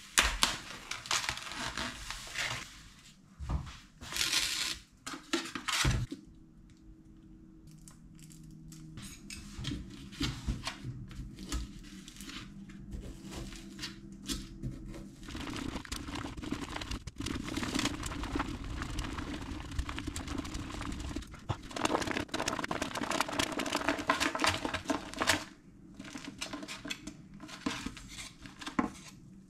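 Plastic cling film crinkling and tearing as it is pulled off a meat tray, in loud bursts over the first few seconds. Then a long stretch of quick, soft scraping and clicking: chopsticks stirring natto in its plastic pack, still hard from the freezer.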